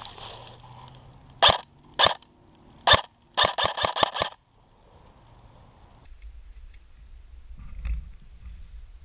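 Airsoft rifle firing close by: three single shots a little over half a second apart, then a quick string of about six shots. After that only a low rumble remains.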